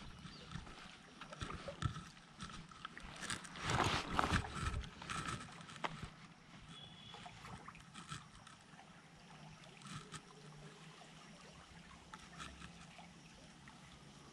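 Faint water flowing and gurgling, with a cluster of clicks and knocks about four seconds in and a few single ticks after.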